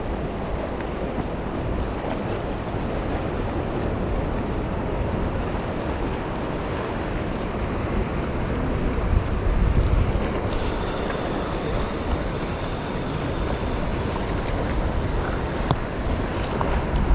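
Wind blowing across the microphone over gently lapping sea water, a steady rush. About ten seconds in, a thin high steady whine joins for about five seconds, then stops.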